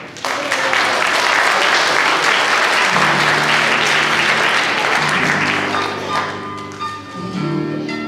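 Audience applauding, loudest early on and dying away about six seconds in. Instrumental music with steady held notes starts underneath about three seconds in and carries on after the clapping ends.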